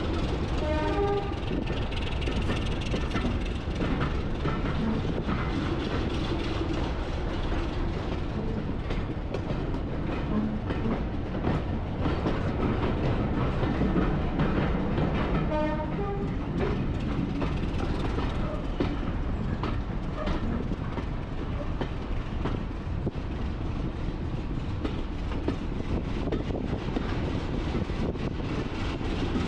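A heritage railway train running along the track, with a steady rumble and the click of wheels over rail joints. Two short pitched calls sound over it, about a second in and again about sixteen seconds in.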